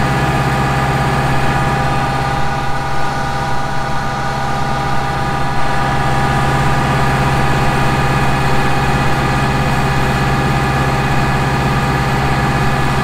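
Tractor engine running at steady, unchanging revs while driving a PTO slurry agitator that is stirring the slurry tank.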